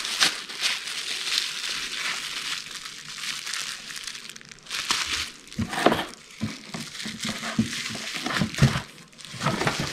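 Plastic bubble-wrap bag crinkling as a battery charger is slid into it and handled, followed from about halfway by a series of soft knocks and rustles as the wrapped item is set into a cardboard box.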